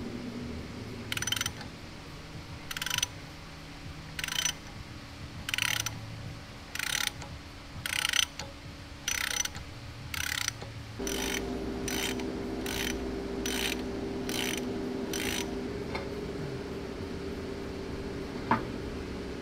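Ratchet wrench clicking in short bursts as it winds a bearing puller's screw to draw a gear and bearing off the differential shaft. The strokes come about a second apart at first, then quicker from about halfway, and stop; a single sharp metal knock follows near the end.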